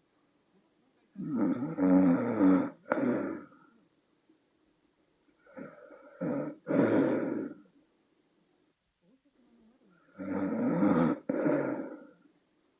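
A woman in her late thirties to forties snoring in her sleep, on a night of exhaustion. There are three snores about four seconds apart, each a rattling breath in two or three parts.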